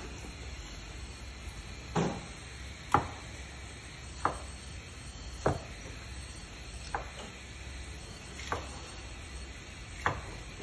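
Kitchen knife cutting down onto a wooden chopping board: seven separate knocks, roughly one every second and a half, over a steady low hum.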